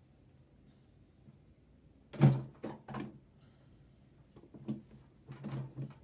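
A series of knocks and clunks from the sewing machine being handled and worked on. The loudest comes about two seconds in, two more follow quickly, and a cluster of lighter knocks comes near the end.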